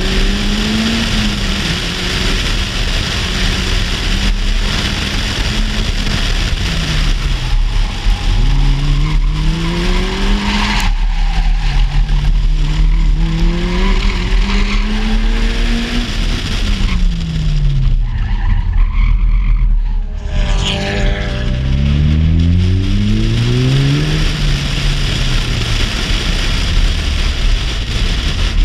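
Car engine driven hard, revving up and dropping back again and again through gear changes, over heavy wind and road noise at an outside door-mounted microphone. A short tyre squeal comes about twenty seconds in.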